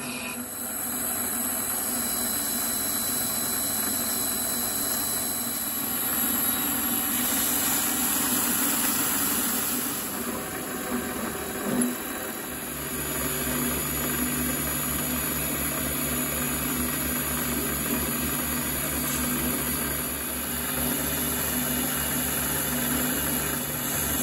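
Mini lathe running while cutting brass, a steady motor hum under the noise of the cut. The first half is a countersink in the tailstock chuck chamfering the bore. About halfway a short knock is followed by a deeper, steadier hum as turning with a lathe tool takes over.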